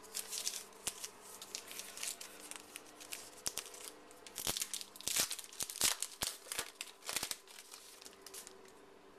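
Foil wrapper of a trading-card pack being torn open and crinkled in the hands: irregular crackling and short rustling swishes, busiest in the middle.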